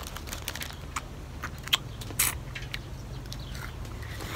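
Wet mouth sounds of people sucking on ice lollies: scattered clicks and smacks, the two loudest around two seconds in, over a faint steady low hum.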